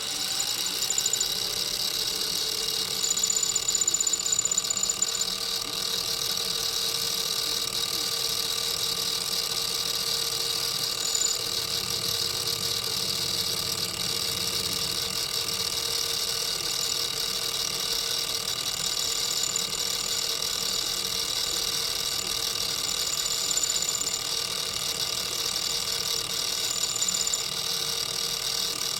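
Metalworking machine tool running steadily: an even motor-and-gear hum with a high whine and hiss that hardly changes.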